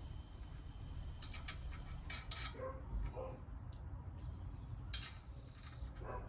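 A 13 mm wrench working the side-step mounting bolts under a Ford Bronco: a few short, sharp metallic clicks and clinks, in pairs about a second in and around two seconds, and once more near five seconds, over a steady low rumble. A bird chirps briefly near the middle.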